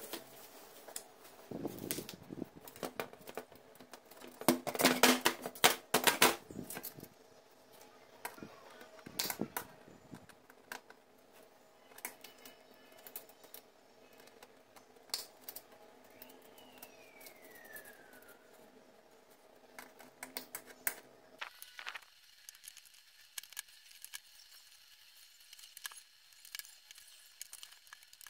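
Metal-on-metal clicks, taps and scrapes as a flat metal tool and hands work at a copper jewellery box, prying at the velvet-lined panel in its lid. The clatter is loudest in a dense run about five seconds in, with scattered clicks after.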